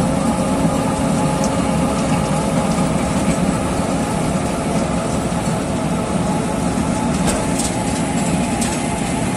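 Wirtgen W 100 H cold milling machine running steadily under load: its diesel engine drones while the rotating cutter drum grinds off the asphalt road surface.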